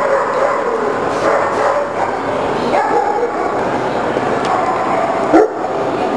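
Dogs barking and yipping over the steady crowd din of a large, busy show hall, with one brief loud burst about five seconds in.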